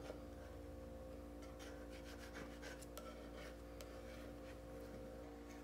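Faint scraping and light ticks of a putty knife working softened paint stripper off a chainsaw bar, over a steady low hum.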